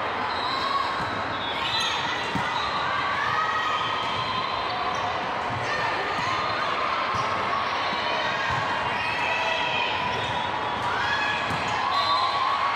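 A ball game on an indoor court: a ball bouncing on the floor again and again, with voices and shouts echoing around the hall.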